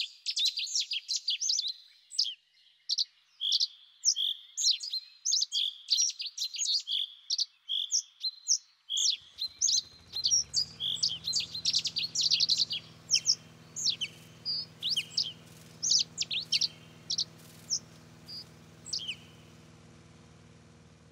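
Small birds chirping, many short rapid high calls, busiest in the first half and thinning out towards the end. About nine seconds in, a low steady hum comes in underneath and carries on.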